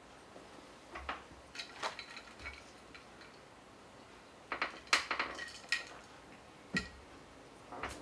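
Dishes and cutlery clinking: scattered light clinks and taps, a small cluster of them about halfway through.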